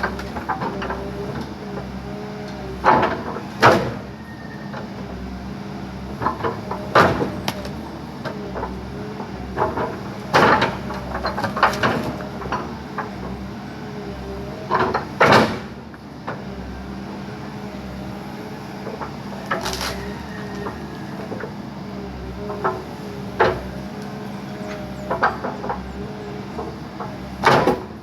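Backhoe engine running steadily with a wavering hydraulic whine, broken every few seconds by loud sharp cracks and knocks as the machine breaks up a tree.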